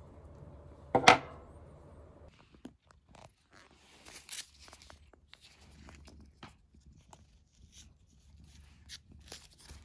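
A sharp snap about a second in, then scattered light clicks, rustling and tearing of plastic cat-food pouches handled against bowls.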